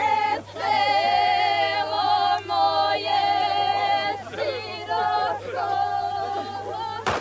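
A group singing a traditional village wedding song unaccompanied, voices holding long high notes in phrases with short breaks between them.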